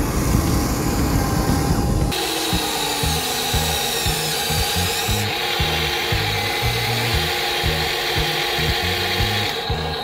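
Whine of a remote-control toy excavator's small electric motors and gears, gliding up and down in pitch as the arm moves. Before that, about two seconds of rough, dense noise ends abruptly.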